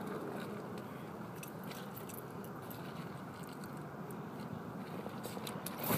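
Scattered faint clicks and crunching of handling close to the microphone, over a steady low background noise, with a sharper cluster of clicks near the end.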